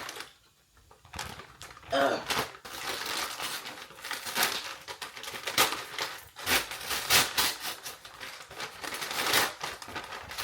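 Packaging being opened by hand: plastic and paper crinkling and rustling, with some tearing, in irregular bursts. There is a short grunt a couple of seconds in.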